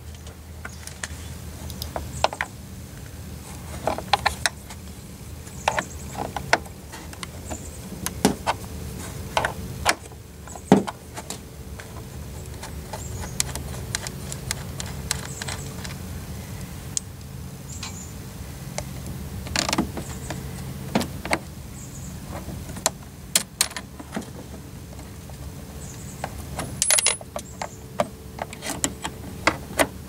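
Irregular metallic clicks and clinks as a nut is worked off a 6-volt deep-cycle battery's terminal stud and the cable ring terminals are lifted off, disconnecting the battery.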